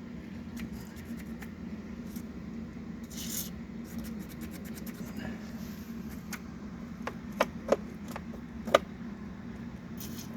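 Hand tools working on hydraulic hose fittings: rubbing and scraping, then three sharp metallic clinks about seven to nine seconds in, over a steady low hum.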